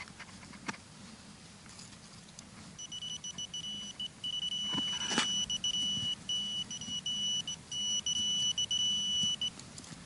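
Handheld metal-detecting pinpointer sounding a steady high-pitched tone in short and longer pulses as it is probed into the dirt of a dig hole: it is signalling a metal target still in the hole. A sharp knock about five seconds in, from the probe and hand working the soil.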